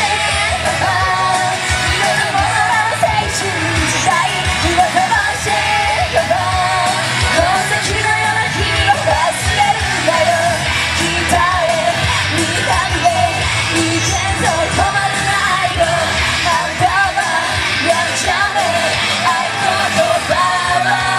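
Two female singers singing into microphones over loud pop-rock backing music through a PA.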